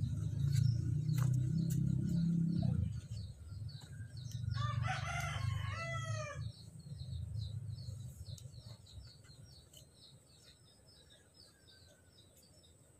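A rooster crows once, about four and a half seconds in, a single crow lasting about two seconds. Before it, a low rumble fills the first few seconds and stops abruptly.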